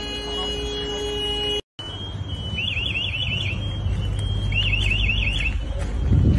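An electronic alarm sounding in repeated bursts of fast warbling tones, about one burst every two seconds, over a low rumble. Before it, a steady hum cuts off abruptly about a second and a half in.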